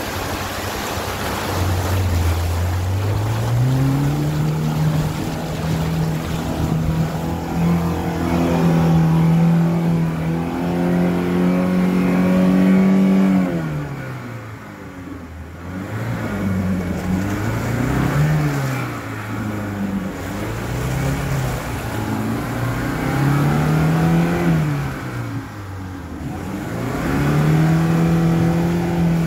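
VAZ-2120 Nadezhda minivan's engine revving hard under load as it pushes through a deep ford towing a trailer, with water churning and splashing around the front wheel. The engine note climbs about two seconds in and holds high, drops away about halfway through, then rises and falls several times before climbing again near the end.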